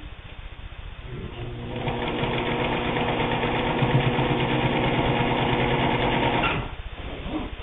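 Pfaff 130 sewing machine stitching through a wool-blend fabric sample: it picks up speed about a second in, runs at a steady even speed, then stops abruptly near the end.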